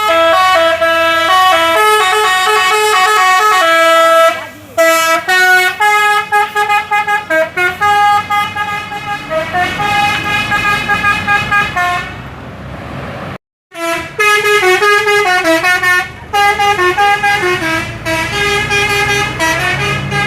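Bus telolet horn (Basuri multi-tone horn) playing a loud melody of stepped notes, with quick repeated toots, cutting out briefly about two-thirds of the way through.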